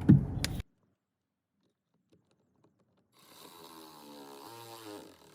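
Dead silence, then from about three seconds in a faint, slightly wavering whir of a small power driver running in the Torx 20 screw on the door trim panel.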